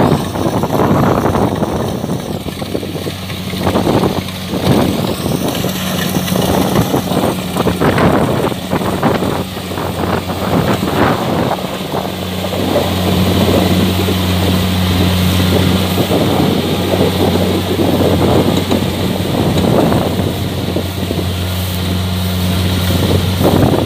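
Kubota DC-70 combine harvester running steadily with a low diesel hum while harvesting rice, uneven rustling and wind noise on the microphone over it.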